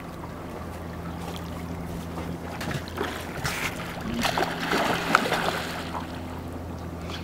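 Boat engine idling with a steady low hum, under a rushing noise of wind and water that grows louder about three seconds in and eases off near the end.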